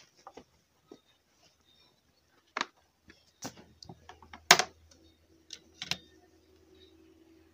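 A handful of sharp, scattered clicks and knocks, the loudest about four and a half seconds in, over a faint low hum.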